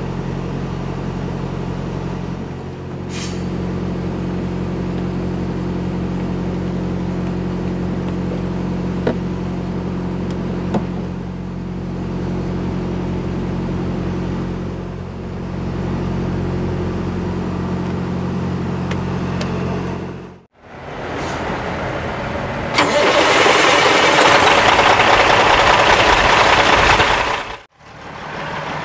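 Caterpillar diesel engine of a Kenworth W900 semi truck running at a steady idle, left running after a fuel filter change to clear air from the fuel system. Near the end, after a break, a louder rushing noise takes over for about five seconds.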